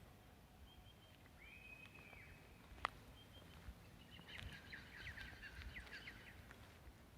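Faint birdsong: a few short high chirps and a held whistled note, then about two seconds of a rapid run of short descending notes. A single sharp click sounds a little before the middle.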